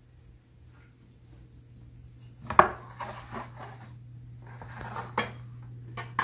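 Metal utensils clinking and scraping against ceramic dishes: a sharp clink about two and a half seconds in, followed by a scrape, then lighter clinks near the end, over a low steady hum.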